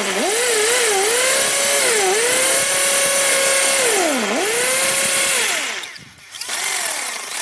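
Bosch GSB 550 corded impact drill running in hammer mode, drilling into concrete, with a rattling hiss from the hammer action. The motor's whine sags in pitch several times as the bit is pressed in and picks up again. It stops about six seconds in, then spins up briefly once more.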